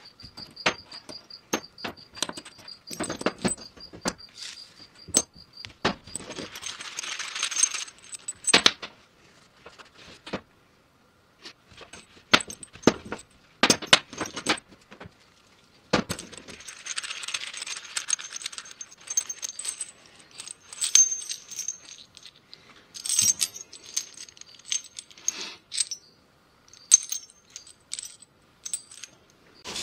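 Steel bolts, nuts and washers clinking against each other and a metal workbench as they are handled and wiped clean. Paper shop towels rustle twice.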